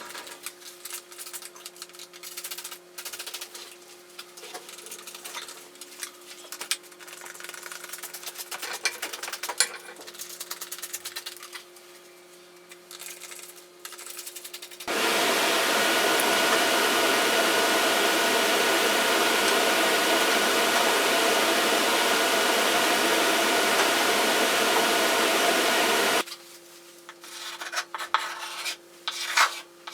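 Scraping and rubbing as materials are handled, with scattered clicks. About halfway through, a loud steady noise runs for about eleven seconds, starting and stopping abruptly, and then the scraping resumes.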